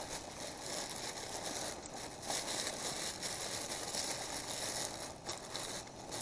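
Plastic bag crinkling faintly as vegetables are tipped out of it into a pan, over a steady low hiss.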